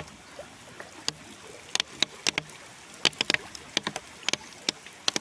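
Heavy rain: large drops striking a nearby surface as sharp, irregular ticks over a steady hiss.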